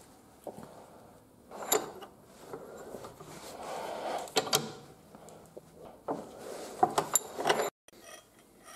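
Steel T-handle of a homemade vise screw being worked, sliding in its cross hole and clinking metal on metal. Separate sharp clacks come about a second and a half in and again halfway through, then a quick cluster near the end.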